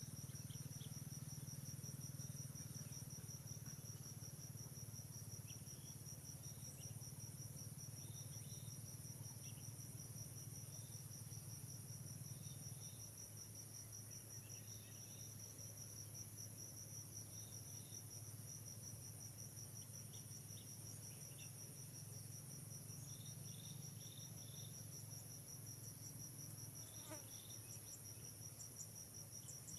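Faint, steady insect chorus of crickets: a continuous high, pulsing trill with a higher band above it, over a low hum, with scattered short faint chirps.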